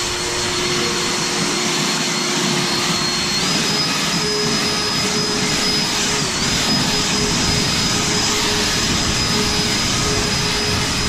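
EGO battery-powered backpack leaf blower running: a steady rush of air with a high fan whine. About three seconds in the whine steps up in pitch as the motor speeds up, dips briefly a few seconds later, then holds steady.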